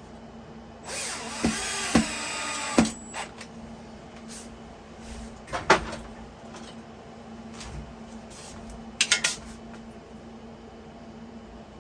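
A handheld power drill runs for about two seconds, its motor pitch rising and falling, with sharp knocks during and just after the run. A few more sharp knocks and a quick rattle of clicks follow, over a steady low hum.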